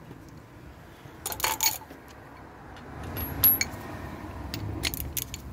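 Metal hand tools clinking and clattering as they are handled: a few sharp clinks about a second in, another just past three seconds, and more near the end. A 13 mm socket is being found for a ratchet.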